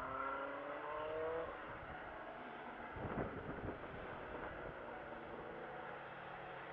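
Distant racing car's engine accelerating, its note rising for about the first second and a half, then carrying on faintly. A brief rough rumble comes about three seconds in.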